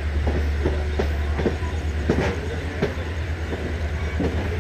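Train running on rails: a steady low rumble with irregular clacks and knocks of wheels over rail joints, about every half second.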